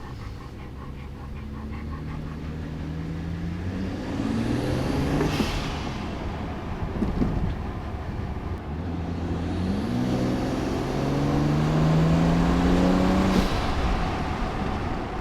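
BMW 335i's N54 twin-turbo inline-six accelerating hard under boost, the engine's pitch climbing twice through the gears. Each climb ends in a brief hiss and a sudden drop in pitch at the gear change.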